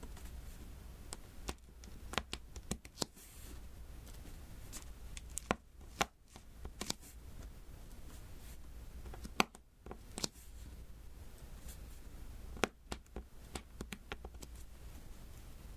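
Diamond-painting drills being tapped one by one onto the sticky adhesive canvas: irregular light clicks and taps, some in quick clusters.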